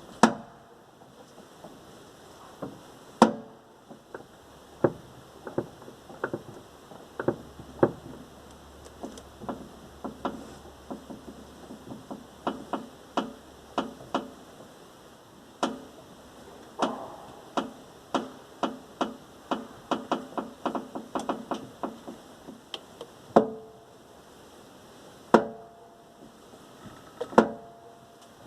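Irregular series of sharp knocks from under the hood of a 1997 VAZ 21099 as the steering is turned, some with a short metallic ring. They come thickest in the middle and are spaced out near the end. The owner suspects a worn-out steering rack.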